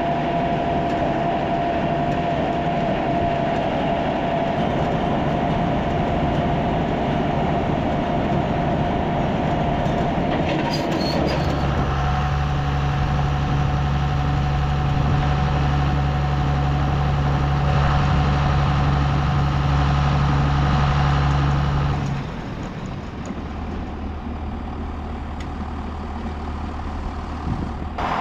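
Heavy farm machinery running steadily, with a constant whine over the engine. A deep steady drone comes in a little before halfway and cuts off about three-quarters through, leaving a quieter engine running.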